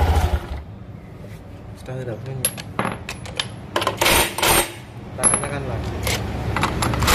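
Scooter engine idling cuts off just after the start, then metal parts and tools clink, click and scrape, with two short, bright metallic rings.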